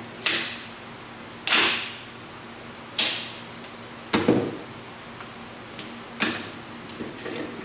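Sharp mechanical clacks from a WE CQBR gas blowback airsoft rifle being handled and worked, about five loud clacks a second or so apart, then a few lighter clicks near the end. The clack about four seconds in carries a deeper thud.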